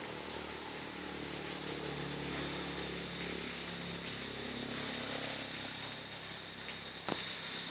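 Steady rain falling on leaves, with the low hum of a passing engine that swells and fades over several seconds. A sharp click comes near the end.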